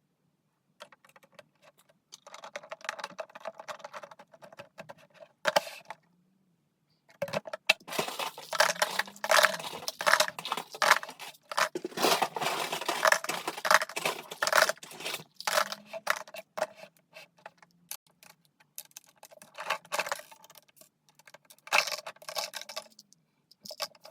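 Loose Lego plastic pieces rattling and clicking together as they are handled, in several bursts, the busiest and loudest through the middle.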